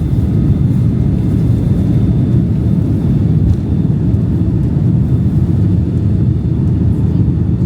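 Steady low rumble of a jet airliner, heard from inside the passenger cabin.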